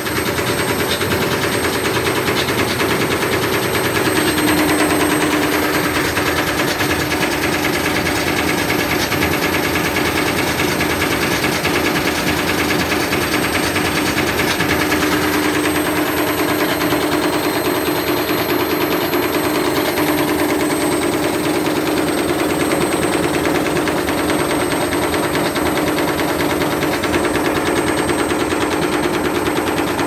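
A tumble dryer drum spun fast through a belt by a universal washing machine motor: a steady hum under a loud, continuous fast rattle as the drum bashes around.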